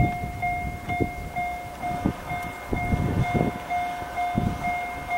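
Railway level-crossing warning bell ringing steadily, two notes together pulsing about twice a second, the signal that a train is approaching. Strong wind buffets the microphone in low, irregular gusts.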